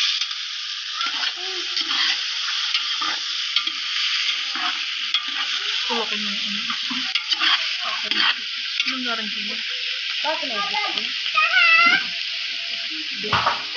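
Chicken pieces sizzling in a large pot over a wood fire with a steady hiss, stirred with a metal ladle that scrapes and clinks against the pot.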